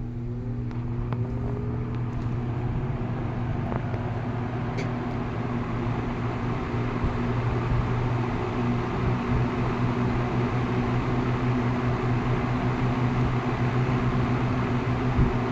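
1970s Monarch Aire box fan with its General Electric motor starting up on low speed: a steady motor hum, with the blade tone gliding upward in the first few seconds as the blades come up to speed and the rush of air slowly growing louder.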